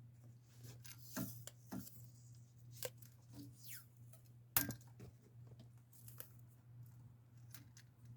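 Vinyl electrical tape being pulled off the roll and wrapped around the sides of a GFCI outlet: faint scattered tearing and crinkling sounds with handling clicks, the sharpest click about four and a half seconds in, over a steady low hum.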